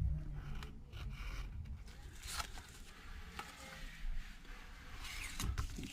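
Faint scraping and a few light clicks from the B7000 glue tube's nozzle and the technician's hands working around an iPad's metal frame, with more handling noise near the end.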